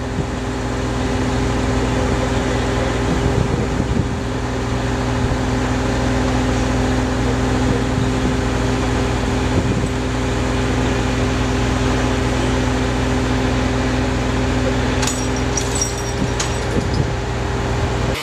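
An engine running at a steady speed: a constant low hum with a rushing noise over it, and a few light clicks near the end.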